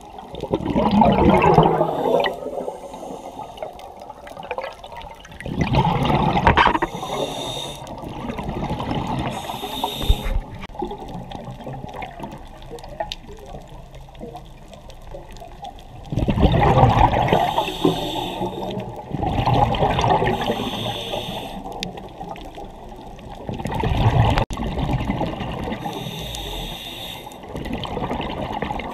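Scuba diver breathing underwater through a regulator: exhaled bubbles rush out in surges every few seconds, with quieter bubbling and hiss between.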